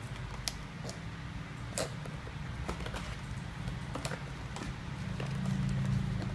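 Cardboard product box being opened by hand: the top flap pulled open and the box tipped and handled, giving scattered sharp clicks, taps and light scrapes of card. A steady low hum runs underneath, louder near the end.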